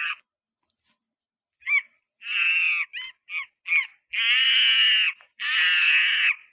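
Cat meowing repeatedly: a few short mews, then three long, drawn-out wailing meows of about a second each.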